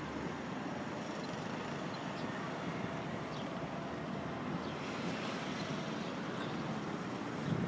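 Steady hum of distant road traffic, an even low rumble with no single vehicle standing out.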